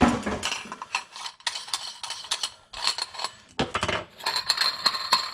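Metal clinking and knocking as a metal basket strainer is handled and fitted into the kitchen sink's drain opening, with a ringing tone near the end.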